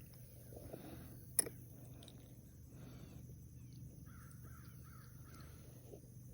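A sharp click about a second and a half in, then a bird calling in a quick run of short calls a little after four seconds, over a low steady hum.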